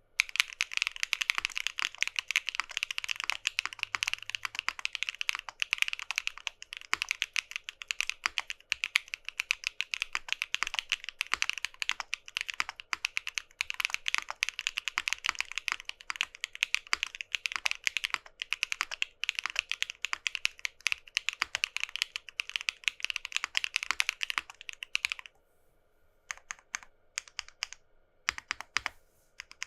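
Continuous fast typing on a mechanical keyboard fitted with lubed Keygeek M1 linear switches. Each keystroke bottoms out on the 7-sphere stem tip with a deep, loud, resonant clack. Near the end the steady typing stops and gives way to a few scattered single key presses.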